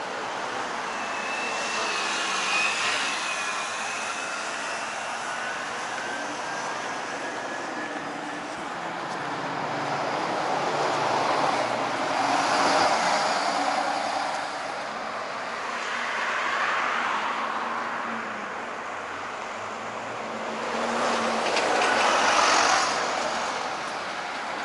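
Road traffic passing close by on a city street: cars, vans and a bus swell up and fade one after another, about four passes, over a steady background of traffic noise.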